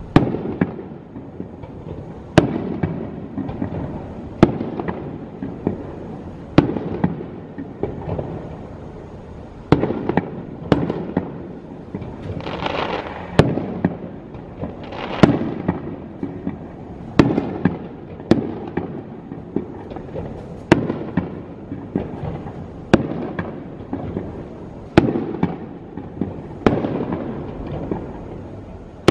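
Aerial firework shells bursting in a display, a sharp bang about every two seconds, each one trailing off, with stretches of crackling between the bangs.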